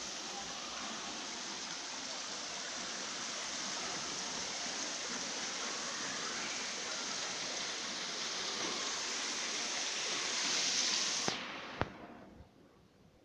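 Water spraying from a garden hose onto grass and paving: a steady hiss. It cuts off abruptly about eleven seconds in with a couple of clicks, leaving only a faint background.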